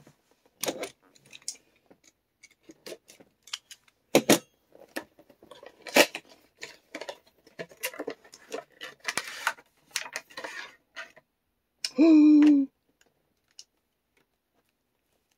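Scattered clicks, taps and crinkles of a HeroClix booster pack and its small plastic figures being handled and unwrapped, with sharper knocks about four and six seconds in. About twelve seconds in, a short hummed voice sound.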